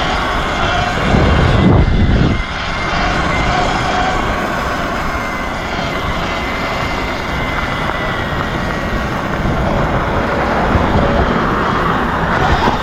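Steady wind and road rush from riding an electric Sur-Ron dirt bike, with a louder gust of wind about two seconds in.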